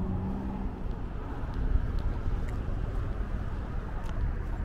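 Steady low rumble of road traffic on a busy multi-lane street, with a vehicle's engine hum that stops less than a second in.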